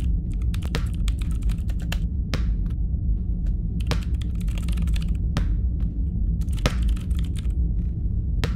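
Typing on a laptop keyboard: irregular keystrokes, some in quick runs, over a steady low hum.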